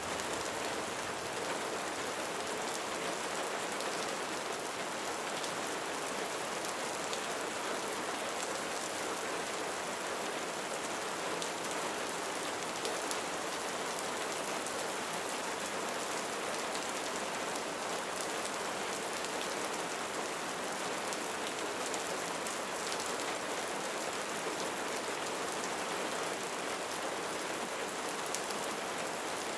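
Steady rain falling on a roof: an even wash of rain with many small drop ticks.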